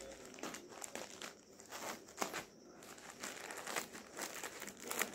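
Faint crinkling and crackling of a plastic courier mailer being handled and cut open with scissors, in scattered short rustles and snips.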